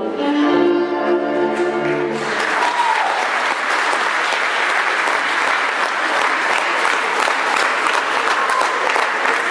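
Fiddle-led folk dance music ends about two seconds in, and an audience breaks into steady applause.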